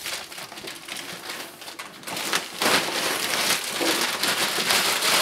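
Plastic shrink wrap crinkling and crackling as it is pulled off a cardboard box, softer at first and louder from about two seconds in.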